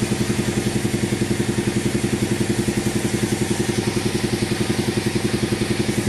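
Sawmill engine running steadily at an even speed, with a regular pulsing beat of about eight beats a second.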